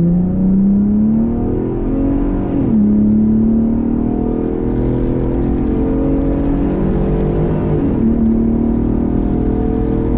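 2021 Ford Raptor's twin-turbo 3.5-litre V6 at full throttle while towing a 7,000-pound trailer, heard from inside the cab. The engine note climbs steadily and drops sharply twice, about three seconds in and again about eight seconds in, as the automatic transmission upshifts.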